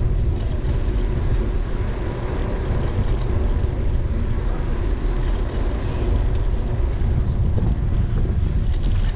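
Steady low rumble of wind and tyre noise on a bike-mounted action camera's microphone while riding along a paved street.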